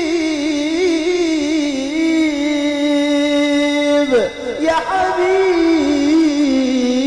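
A male qori's voice in melodic Quran recitation, holding long notes with a wavering ornament, sung into a handheld microphone. About four seconds in the line breaks with a quick slide down and back up in pitch, then the held note resumes.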